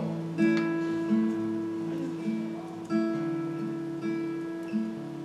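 Acoustic guitar playing slow, ringing picked notes, each left to sustain, as soft background music.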